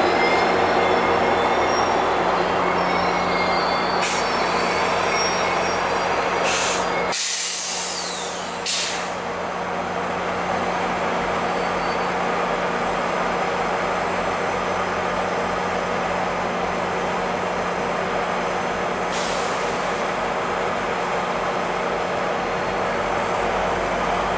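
VIA Rail passenger train of LRC coaches hauled by an F40PH-2 diesel locomotive, rolling away on the rails. The steady running noise of the train carries a constant low diesel drone. About seven to nine seconds in, the noise briefly dips and a few short hisses come through.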